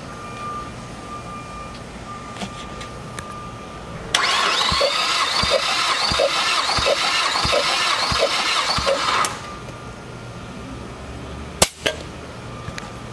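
Mazda L3-VDT 2.3 L turbo four-cylinder cranked on its starter motor for about five seconds, from about four seconds in, during a compression test, spinning without firing: a starter whine with an even pulse from each compression stroke, a little under three a second, cut off suddenly. A single sharp click near the end.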